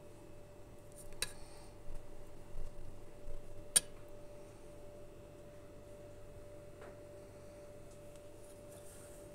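A few light clinks of china dishware, the sharpest about four seconds in, over a faint steady hum.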